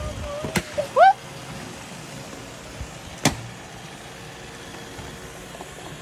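Robot vacuums running, a steady mechanical whir with a held tone that stops about a second in. A short rising squeal is the loudest sound, just after it, and two sharp clicks come, one before the squeal and one about three seconds in.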